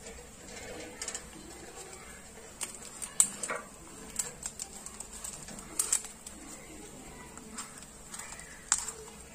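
A spatula stirring rice flour and hot water into dough in a stainless steel bowl, scraping and knocking against the metal in irregular clicks and taps.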